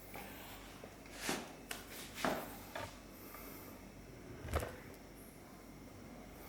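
A few light handling knocks and rustles on a bench, ending in a slightly heavier low thump about four and a half seconds in.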